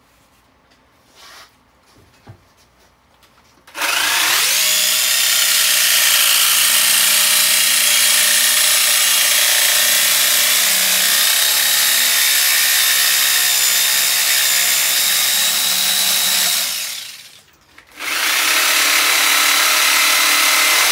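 Reciprocating saw (Sawzall) cutting through the steel rear frame of a 1993 Honda Shadow 600 motorcycle. After a few seconds of quiet with a few small knocks, the saw starts about four seconds in and runs steadily. It stops for about a second and then starts cutting again.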